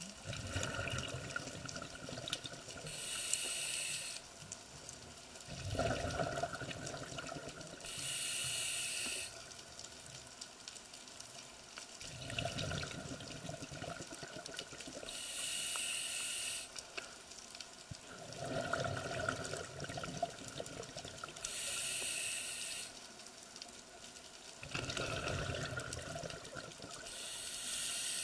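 A scuba diver breathing through a regulator underwater: five slow breaths, each a hiss on the inhale taking turns with a low rush of exhaled bubbles, about every six seconds.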